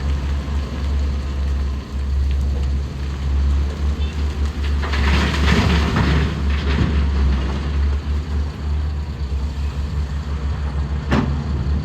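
Heavy diesel engine running steadily with a low hum. About five seconds in, a rushing clatter lasting around two seconds as a bucket load of coal pours into the truck's dump body, and a single sharp knock near the end.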